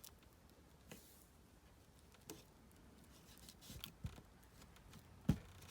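Quiet handling of paper and a glue stick at a craft table: light rustles and small taps, with one louder knock about five seconds in.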